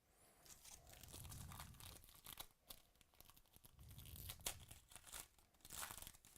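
A trading card pack's foil wrapper being torn open and crinkled by hand, with a quick run of small clicks and rustles as cards are handled.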